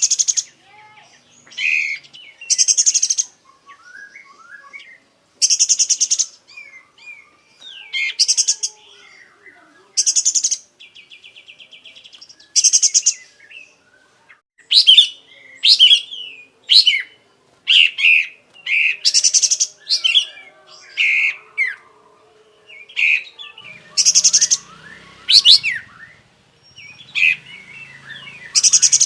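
Kapas tembak bulbul singing hard: loud, harsh, buzzing bursts of song every second or two, with quicker chirps and whistled notes between them as it reels off its repertoire of learned phrases.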